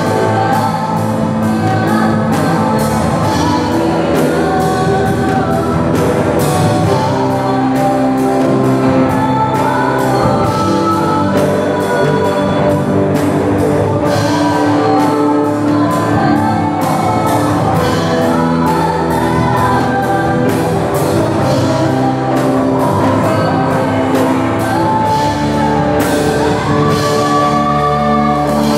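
Live rock band playing: electric guitars, bass guitar, keyboard and drum kit, with a singer singing over them into a microphone, loud and steady with regular drum and cymbal hits.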